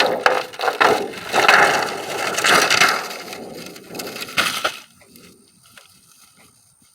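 Plastic greenhouse panel being pushed into its frame, with loud crackling, scraping and knocking that stops about five seconds in.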